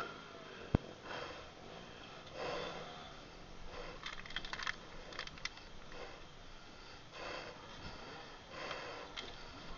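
A person breathing hard and deeply, about one breath every two seconds, with a few sharp clicks from handling the camera about four to five seconds in.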